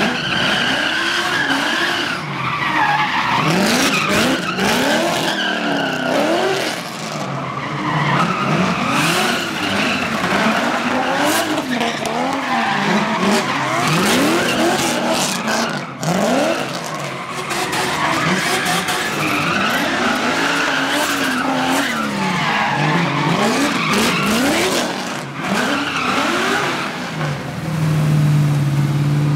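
BMW E46 drift car doing donuts: the engine revs rise and fall over and over, every second or two, while the rear tyres squeal and skid on the asphalt.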